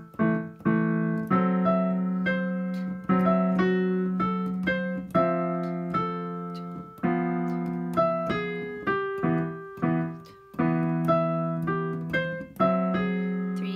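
Digital piano playing a jazz tune: chords of thirds and sevenths struck every second or so and left to ring, with a melody line over them.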